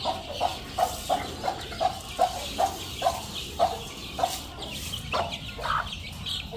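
Chicken clucking: a steady run of short clucks, about three a second, followed by a few more scattered calls about four to five seconds in.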